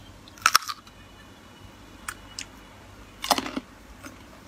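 Crunchy bites and chewing of firm, sour green mango: a sharp crunch about half a second in, a couple of single crunches, then a louder run of crunches about three and a half seconds in.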